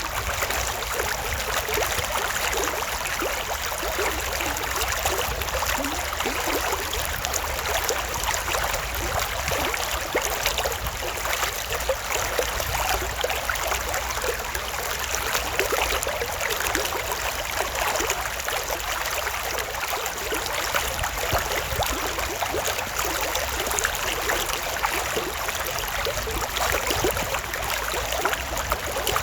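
Creek water flowing steadily, a dense rushing and trickling that never lets up, bright with fine splashing detail and little low rumble.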